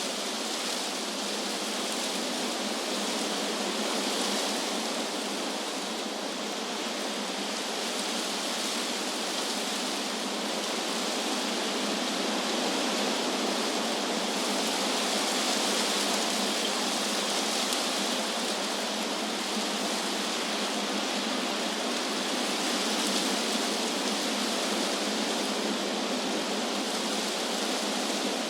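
Wind blowing through trees: a steady rushing hiss of leaves and branches that swells and eases slowly every several seconds.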